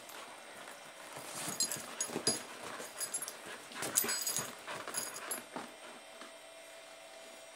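German Shepherd puppy moving about and settling on a leather sofa: irregular scuffs and rubbing against the leather, with clinks of her metal collar tag, busiest between about a second and a half and five and a half seconds in.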